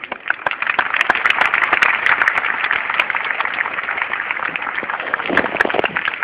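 Audience applauding with many hands clapping at once, swelling about a second in.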